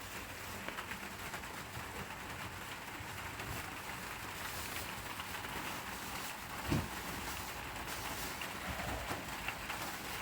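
Steady rain falling, with a single dull thump about two-thirds of the way through.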